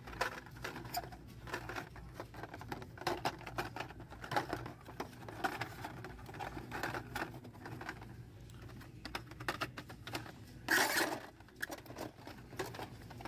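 Hot Wheels cars in plastic blister packs on card backs being flipped through on store pegs: a run of light plastic clicks and rustles as the packs knock against each other, with one louder rustle about three-quarters of the way through.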